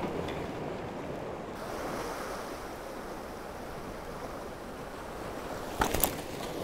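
Sea waves washing against a rocky shore, a steady surf noise, with a couple of sharp knocks about six seconds in.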